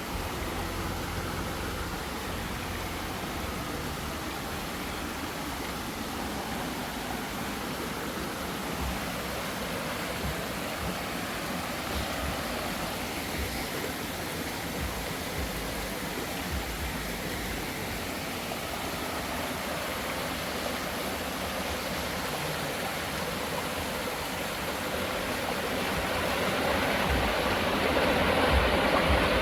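Steady rush of running water, growing louder over the last few seconds.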